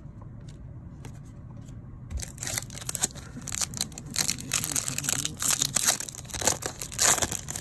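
Foil wrapper of a 2023 Topps Update hobby pack of baseball cards being crinkled and torn open by hand: a dense run of crackling that starts about two seconds in.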